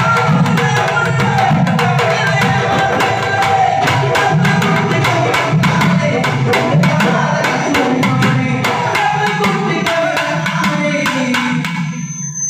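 Thavil drum played solo in a fast, dense naiyandi melam rhythm: sharp stick strokes on one head over booming strokes on the other. The drumming tails off near the end.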